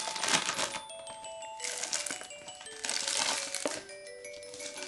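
Background music, with clear plastic wrapping on a roll of wall sticker crinkling in several bursts as it is handled and pulled off.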